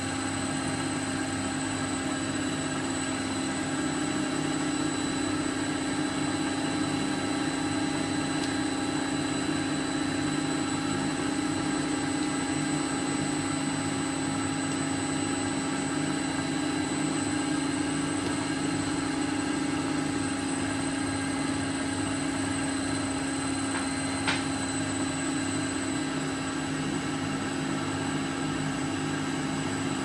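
A motor spins the magnet rotor of a homemade magnetic water heater, running steadily with a constant low hum and a thin high whine above it. A single sharp click comes about three-quarters of the way through.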